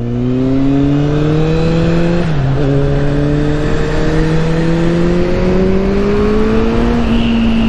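Kawasaki Z800 inline-four motorcycle engine, with an aftermarket silencer, accelerating with rising pitch. A quick upshift drops the revs about two seconds in, then it climbs again and levels off near the end, with wind rush over the microphone.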